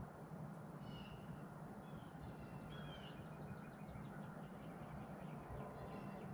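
Wild birds calling faintly, a scattering of short high chirps and calls, over a steady low hum.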